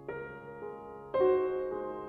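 Solo piano playing classical music: a soft chord at the start, a lighter chord about half a second later, then a louder chord just past a second in. Each is left to ring and fade.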